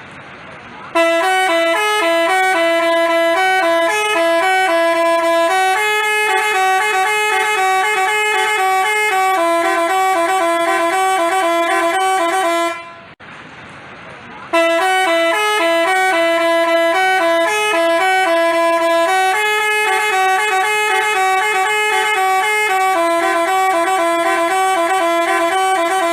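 Telolet basuri multi-tone bus horn playing a melody, its notes stepping up and down in two voices at once. It plays two long phrases of about twelve seconds each, with a short break about halfway through.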